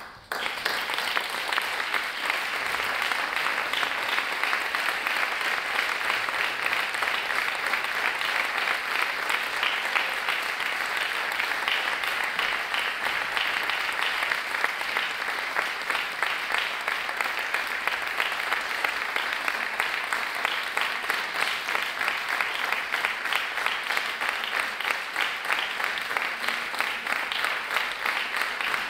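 A seated audience applauding, many hands clapping in a dense, even patter that starts suddenly and keeps going steadily, acknowledging the end of a poetry reading.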